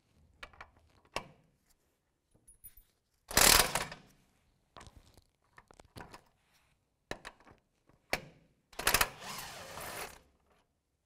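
A cordless 3/8-inch impact gun with an 18mm socket run in two bursts, one short and a longer one about five seconds later, loosening the two caliper bracket bolts. Light clicks and knocks of tools and metal parts come in between.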